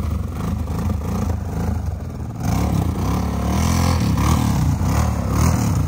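ATV engine revving up and down again and again as the quad, stuck in a deep mud hole, fights to drive out. It gets louder about two and a half seconds in.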